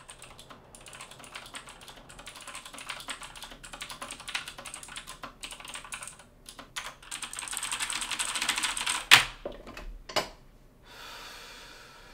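Fast typing on a computer keyboard: a rapid run of key clicks that grows louder, ending in a hard single keystroke about nine seconds in and another a second later. A soft steady hiss follows near the end.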